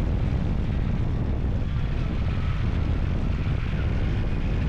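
Baler machinery running with a steady low engine drone.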